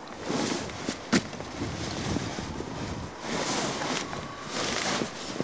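Mountain wind gusting over the microphone in rushing surges, with a single sharp click about a second in.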